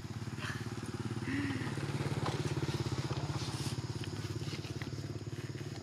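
A small engine running steadily with a fast, even putter, a little louder from about a second in and easing slightly toward the end.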